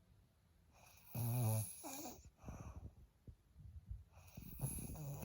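Snoring: a loud snore about a second in, a shorter one just after, and another building near the end.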